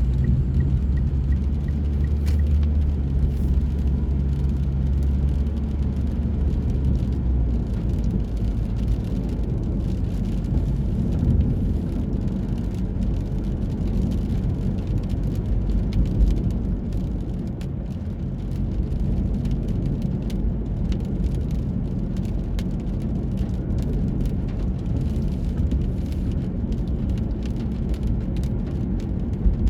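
Steady low rumble of vehicle noise with scattered light ticks through it, in light rain.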